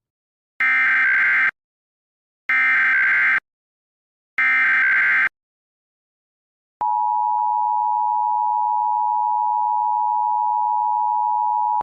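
Emergency Alert System SAME header: three identical warbling digital data bursts about a second apart. These are followed by the steady two-tone EAS attention signal held for about five seconds.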